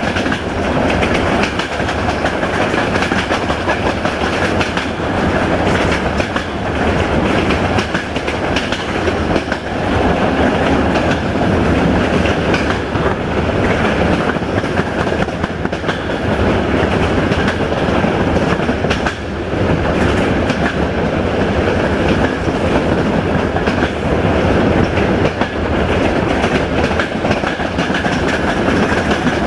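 Indian Railways express train running at speed, heard from an open coach door: a loud, steady rumble with the clickety-clack of the coach wheels over rail joints, mostly while passing through a tunnel.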